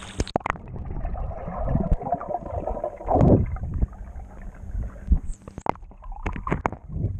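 Swimming pool water heard underwater through a submerged camera: a low, muffled rumbling and gurgling with irregular thuds and surges of water from a swimmer kicking with fins. The brighter above-water sound cuts off about a third of a second in as the camera goes under.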